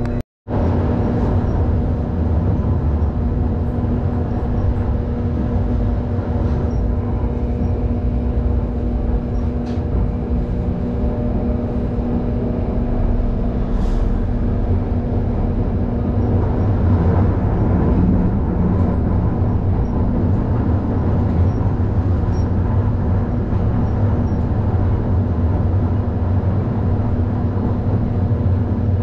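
Hakodate city tram running along the street, heard from inside the car: a steady low rumble of wheels on rail with a steady hum. The audio cuts out for a moment just after the start.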